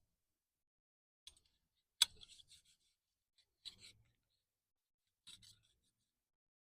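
Small metal parts clicking and scraping in four short bouts, with the sharpest click about two seconds in.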